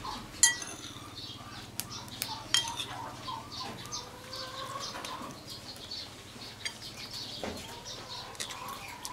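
Birds chirping in the background, with occasional sharp clicks of a spoon against a bowl.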